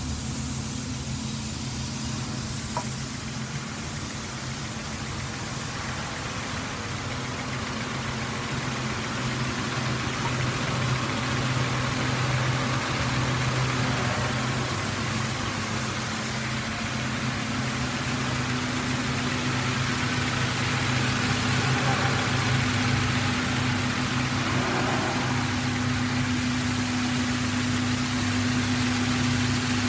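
Brush sanding machine running: its electric motors hum steadily under the hiss of the spinning abrasive brush wheels sanding a wooden strip fed through on rollers. The sound grows a little louder partway through.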